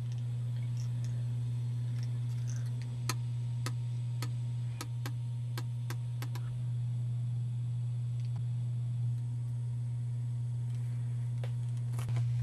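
A steady low hum runs under a string of sharp little clicks from fidgeting hands: about nine irregular clicks over three and a half seconds, then a couple more near the end.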